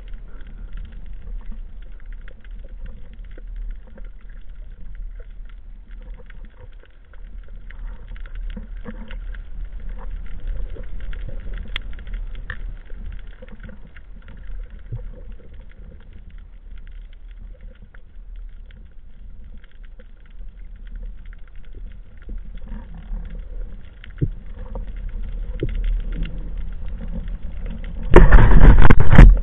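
Underwater ambience: a steady low rumble with scattered faint clicks and crackles. Near the end comes a sudden, much louder rushing burst lasting about a second.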